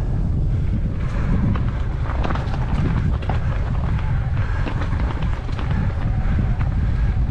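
Wind buffeting the microphone with a dense rattle of clicks and knocks, as of a bicycle ridden fast down a rough mountain trail.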